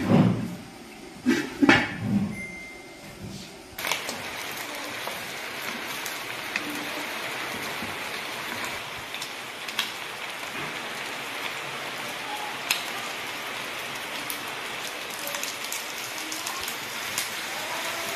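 Chicken pieces frying in a wok, a steady even sizzle that starts abruptly about four seconds in. Before it come a few clanks of the glass pan lid against the wok.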